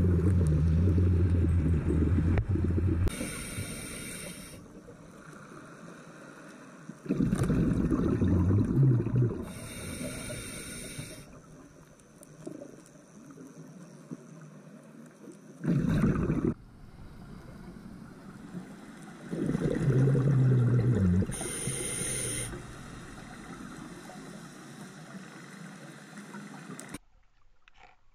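Scuba diver breathing through a regulator underwater: exhaled bubbles rumble out in four bursts, with a short hiss of inhalation between them three times. The sound cuts off suddenly near the end.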